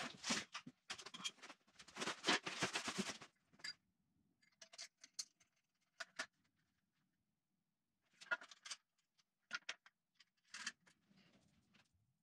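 Cardboard box flaps being pulled open and handled, a dense scraping rustle for about the first three seconds. Then scattered short clicks and knocks as steel stand parts and bagged hardware are handled.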